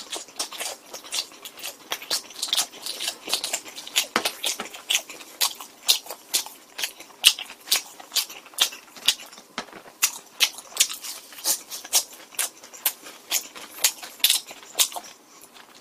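Close-miked chewing of pizza and fried chicken: an irregular run of sharp mouth clicks and crackles, a few a second.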